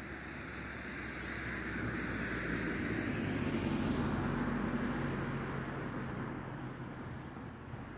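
Aircraft passing overhead: a steady noise that grows louder to a peak about halfway through, then fades away.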